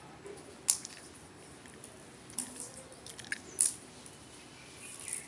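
Plastic toy train track pieces clicking and clacking as they are handled and fitted together: a few sharp, separate clicks, the loudest a little under a second in.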